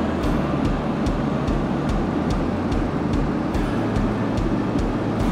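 Homemade wind tunnel's bank of eight electric fans running at speed: a steady rush of air with a low hum and a soft throb about three times a second.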